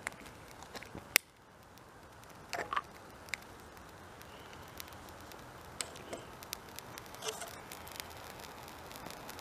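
Homemade multi-wick spray-can stove burning after lighting, with faint scattered crackles and ticks. One sharp click comes about a second in.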